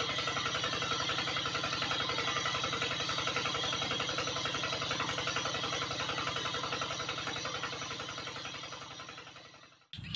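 Small motor of a miniature model water pump running with a fast, even buzzing rattle as it draws water through its hose. The sound fades out near the end.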